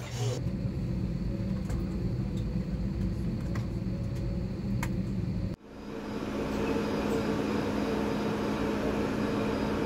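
Steady low rumble of an airliner cabin. About five and a half seconds in it cuts off abruptly and gives way to the steady running noise of a subway train, with a constant low hum.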